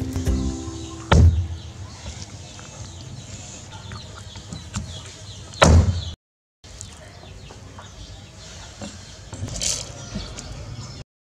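Chickens clucking in the background, with two loud sudden thumps, one about a second in and another a few seconds later.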